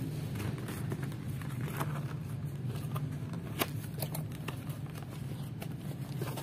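A thin plastic carrier bag crinkling and a small cardboard box being handled and its flap opened: scattered sharp crackles and taps over a steady low hum.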